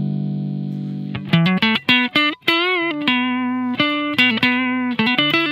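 Clean electric guitar (Telecaster) played through the TC Electronic HyperGravity compressor: a held chord sustaining and slowly fading, then about a second in a run of single picked notes, several of them bent and shaken with vibrato. It stays clean without breaking up, even when played hard.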